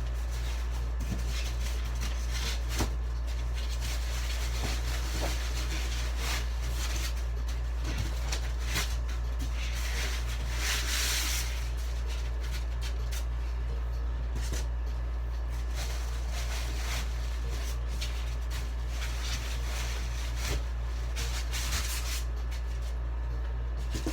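Packing material being handled and pulled out of a box: scattered rubbing, rustling and scraping, with a longer rub about ten seconds in, over a steady low hum.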